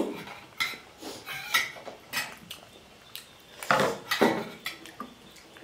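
Metal spoons clinking and scraping against metal dinner plates and bowls during a meal: a scatter of short clinks, the loudest about four seconds in.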